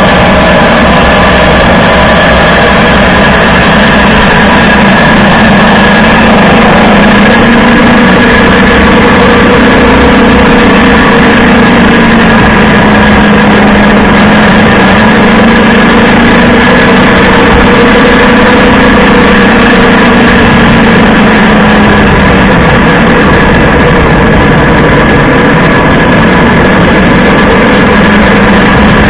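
Toyota HiAce 200-series van under way: steady tyre road noise and drivetrain hum, with a droning tone that wavers slightly in pitch. The owner hears a rattling ("karakara") from the differential, the hub bearings having already been replaced.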